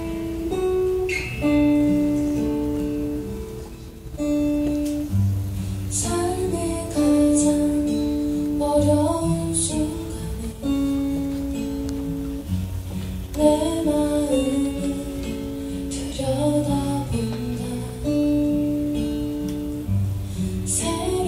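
Live song: acoustic guitar accompaniment under long held notes, with a woman singing melodic phrases with vibrato.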